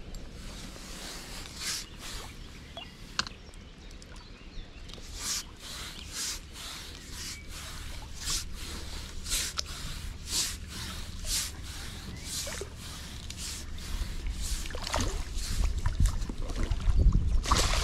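Water splashing and sloshing in a run of short, irregular bursts as a hooked common carp thrashes at the surface, with a low rumble building about three-quarters of the way through.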